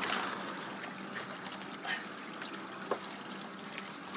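Water splashing and trickling as a hooked catfish thrashes at the surface and is scooped up in a landing net, with a few faint knocks.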